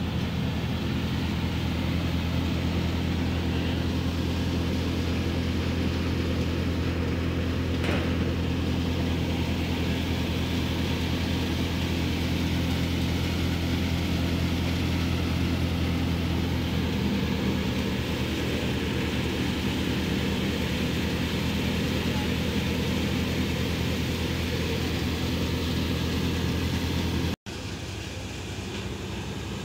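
A tractor-driven Shaheen wheat thresher running steadily, with a constant low drone from the tractor engine and the spinning thresher drum and belt pulleys. Near the end the sound cuts out for an instant and comes back somewhat quieter.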